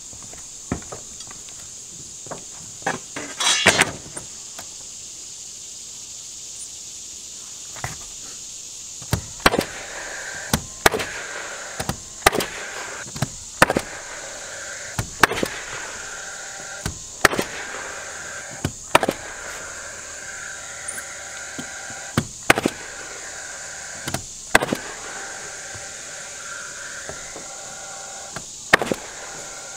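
Nail gun firing nails into plywood roof decking: a string of sharp shots, one every second or two, starting about a third of the way in, after a few lighter knocks.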